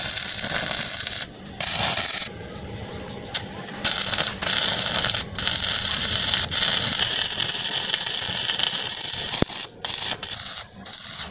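Stick (manual arc) welding: the electrode's arc crackling on a steel axle housing as a bracket is welded on fully. The arc comes in short runs broken by pauses over the first few seconds, then burns steadily from about four seconds in until nearly ten seconds.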